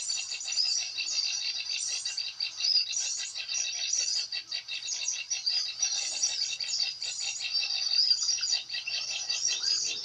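Small songbirds chirping and chattering without pause, rapid high-pitched calls overlapping one another.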